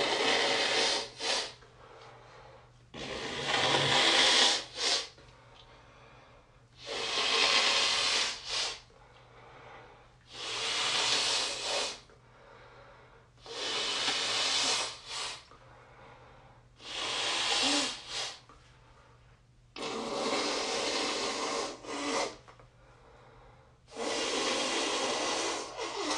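A heavily congested person blowing their nose in a series of soft, juicy, snotty blows. There are eight blows about three to four seconds apart, each a couple of seconds of airy rushing, most ending in a short extra puff.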